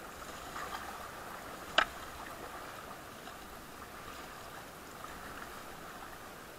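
River water splashing and rippling as paddles stroke alongside an inflatable raft in a shallow channel, with one sharp knock about two seconds in.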